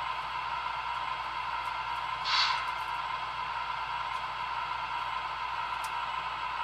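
An O gauge steam locomotive's RailSounds 5 sound board plays a steady steam hiss through its small onboard speaker, with a short louder burst of hiss about two seconds in.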